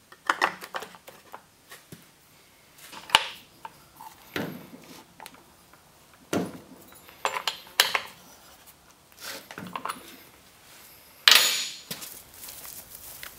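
Metal clinks and rattles of a box-end wrench on the bar nuts and of the side cover of a Stihl 028 AV chainsaw being fitted by hand, in separate short bursts a second or two apart. A longer, harsher rattle comes near the end.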